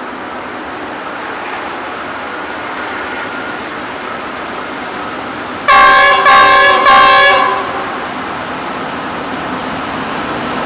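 Pacific National NR class diesel-electric locomotive approaching with a steady engine and wheel noise that slowly grows louder, sounding its horn in three loud blasts near the middle, the third a little longer and fading out.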